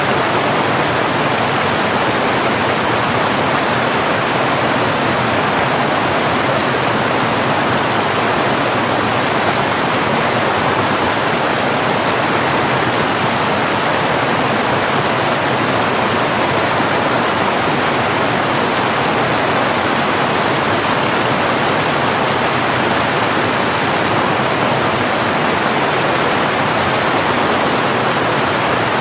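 Steady, unbroken rush of flowing water, without the rise and fall of waves.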